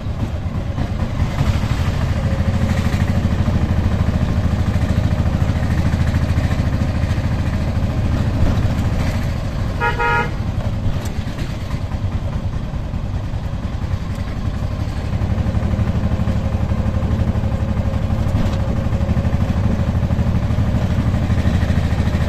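An auto-rickshaw's single-cylinder engine running steadily as the rickshaw drives through traffic, heard from the passenger seat. About ten seconds in, a vehicle horn honks once, briefly.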